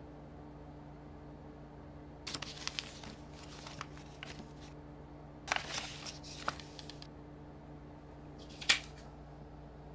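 Papers and plastic DVD and game cases rustling and shuffling as a hand rummages through a pile on a desk, in two spells, then one sharper, louder rustle near the end, over a steady low hum.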